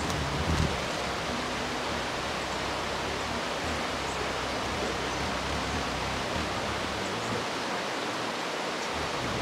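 Steady, even rushing noise with a brief low thump about half a second in.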